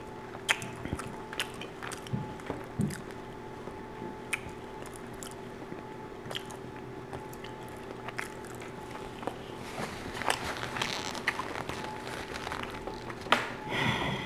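Close-miked chewing of crusty baked pizza-dough bread with chicken and cheese: scattered crunches and wet mouth clicks, busier about ten seconds in. A faint steady hum runs underneath.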